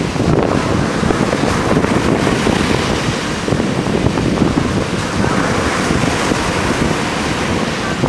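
Large waves breaking and washing up on a sandy beach in a continuous wash of surf, with wind buffeting the microphone.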